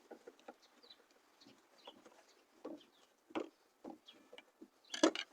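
Scattered short knocks and clicks of hand work on a Corvette's fuel-pump hoses, with a sharper clatter about five seconds in as the hose comes free. Faint bird calls in the background.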